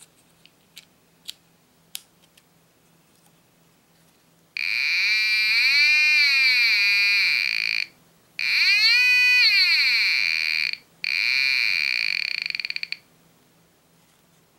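A few small clicks as a 9V battery snap is connected, then a BFO metal detector's small speaker gives a buzzing beat tone in three stretches. Its pitch sweeps down and back up as the brass tube is slid inside the search coil to tune the oscillators. The last stretch breaks into a slowing run of clicks as the beat note drops toward zero.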